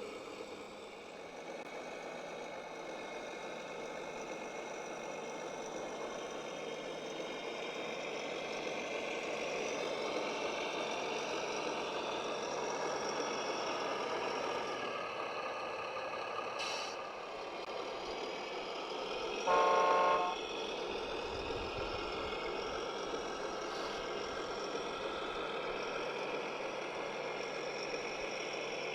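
Radio-controlled construction vehicles running with a steady whine that shifts in pitch, and one short horn toot about two-thirds of the way through.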